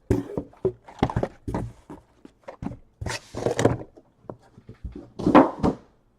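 Trading-card hobby boxes and packs being handled on a table: a run of knocks and taps, with two louder spells of cardboard and wrapper rustling, about three seconds in and again about five seconds in.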